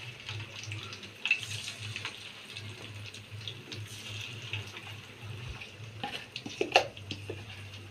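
Chicken pieces deep-frying in hot oil: a steady sizzling hiss with fine crackles, and two sharp clicks, the louder one near the end.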